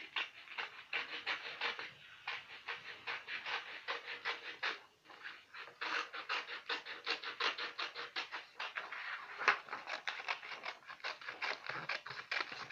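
Scissors cutting a strip of white paper: a quick run of scratchy snips that pauses briefly about five seconds in.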